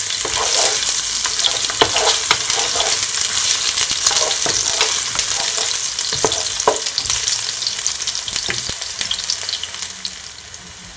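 Garlic, ginger and onion sizzling in a little olive oil in a non-stick frying pan, with a plastic spatula scraping and tapping the pan as it stirs them. Near the end the stirring stops and the sizzle gets quieter.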